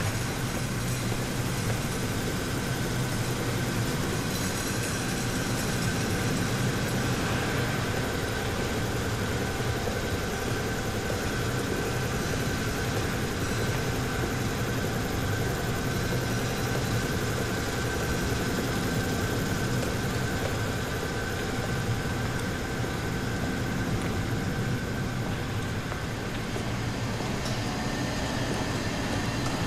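Textile mill machinery running: spinning and winding frames giving a steady, dense mechanical din with a low hum and a thin, constant high whine.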